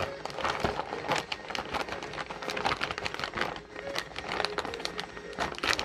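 Plastic FedEx shipping pak crinkling and crackling as it is handled, an irregular run of sharp crackles.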